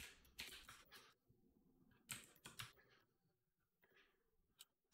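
A few faint computer keyboard keystrokes, scattered taps bunched about half a second in and again about two seconds in, with one more near the end.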